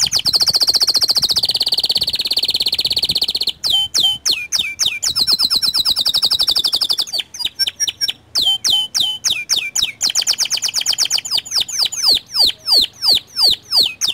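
Small local canary singing: fast rolling trills and runs of quick downward-sweeping whistled notes, with brief pauses between phrases.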